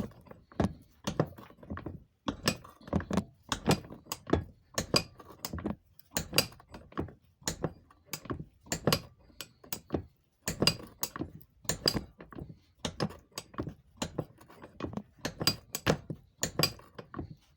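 Repeated light metallic clinks and knocks, often in small clusters about a second apart, as the edge of a vacuum advance unit's metal canister is crimped over a new diaphragm in a bench vise a bit at a time.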